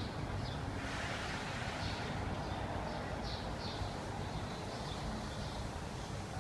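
European goldfinch giving short, high chirps, about one or two a second, over a steady low background rumble, with a brief rush of noise about a second in.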